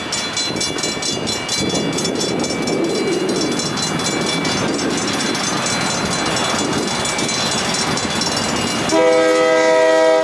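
A grade-crossing bell rings rhythmically at the start, over a steady rushing noise. About nine seconds in, the approaching diesel locomotive sounds its air horn in one loud chord lasting just over a second.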